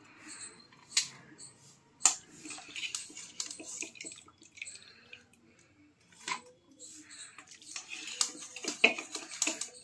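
Boiled goat intestines being scooped out of a steel kadhai with a wire-mesh strainer: the broth splashes and drips back into the pan, with about four sharp clinks of metal on metal.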